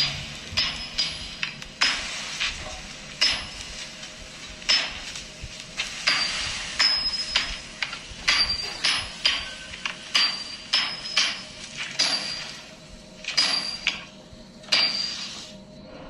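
Blacksmith's hammer striking hot metal on an anvil, one strike every half second to a second, each with a short high metallic ring.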